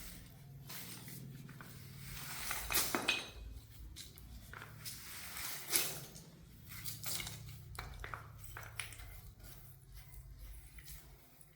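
Hand tools scraping and clinking against hard tile and concrete surfaces in irregular strokes, the loudest scrapes a few seconds in and again about halfway through.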